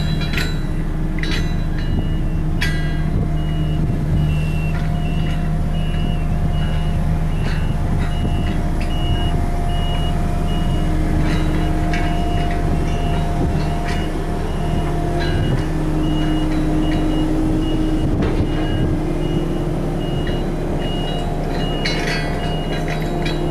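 Diesel engine of earthmoving machinery running steadily, with a reversing alarm beeping in a steady rhythm throughout and a few metallic clanks.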